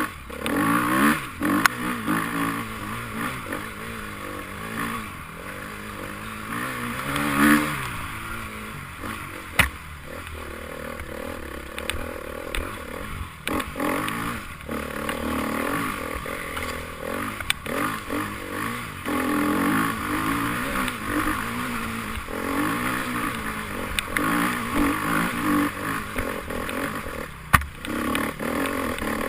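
Enduro motorcycle engine revving up and down as it is ridden, with scattered knocks and clatter, one sharp knock near the end.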